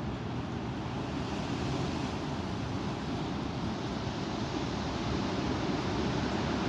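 Strong wind blowing across the microphone, a steady low rumbling rush.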